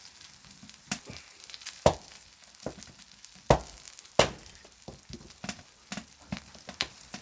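Pork belly and gopchang sizzling on a flat stone over a wood fire, with a faint steady hiss and scattered sharp crackling pops. The loudest pops come about two, three and a half, and four seconds in.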